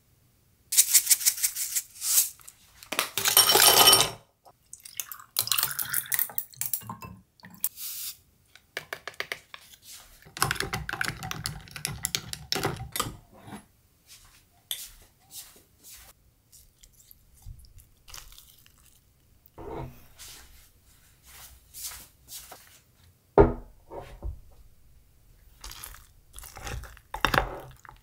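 Kitchen handling sounds: a spoon stirring and scraping a soft-tofu and egg mixture in a glass bowl, and a glass of iced drink being handled, in uneven stretches of clinks and crackles. There is one sharp knock about two-thirds of the way through.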